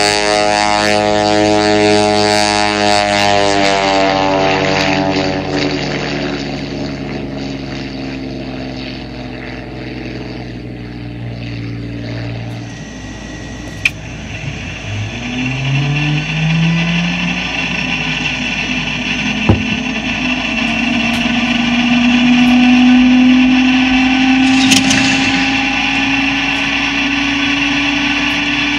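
Messerschmitt Bf 109E-3's Daimler-Benz DB 601 V12 engine at takeoff power, its pitch falling and fading as the fighter lifts off and draws away. Then comes a whine that rises steadily for several seconds, typical of the Bf 109's inertia starter being wound up before engine start, with a couple of sharp clicks.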